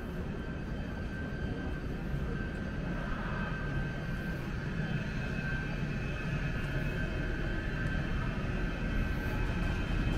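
A vehicle's steady low rumble with a steady high whine above it, slowly growing louder.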